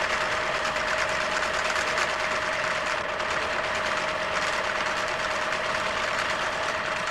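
Sewing machine running at steady speed: a steady whine under a rapid, even clatter of stitching.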